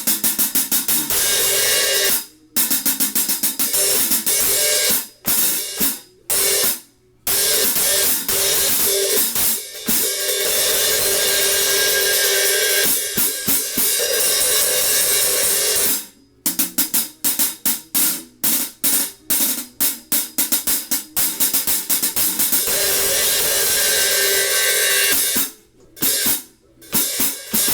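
Zildjian 13-inch K Custom Dark hi-hat cymbals being played as a sound test, with the crack in the top cymbal repaired. Runs of rapid strikes and longer ringing, washy passages are broken by sudden cut-offs where the cymbals are closed.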